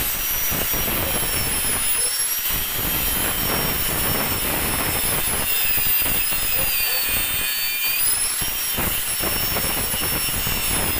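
Electric angle grinder running at speed, its disc grinding an aluminium motorcycle crankcase: a high whine over a steady rasp. The whine sinks in pitch as the disc is loaded, about six seconds in, and climbs back about two seconds later.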